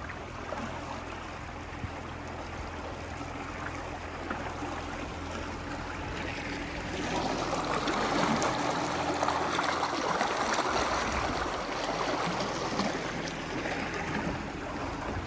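Water rushing and splashing along the hull and in the wake of a small boat driven by an ePropulsion Spirit 1.0 Plus electric outboard, with a low steady hum under it. The rush of the wake grows louder about seven seconds in.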